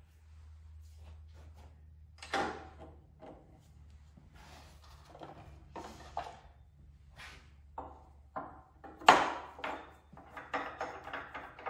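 Irregular knocks, clunks and rattles of lathe parts and tools being handled on a woodturning lathe, the loudest a sharp knock about nine seconds in, with a quick run of clatter near the end.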